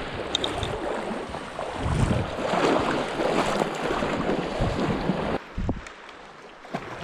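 Lake water splashing and sloshing, mixed with wind on the microphone; the rush stops suddenly about five seconds in, followed by a single thump.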